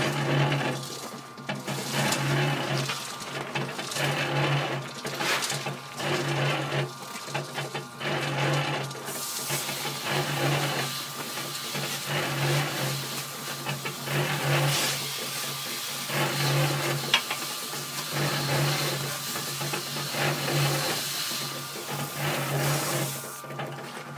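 Small electric cement mixer running with its drum turning: a motor and gear-drive hum that pulses about once a second. A brighter hiss joins about nine seconds in and drops away near the end.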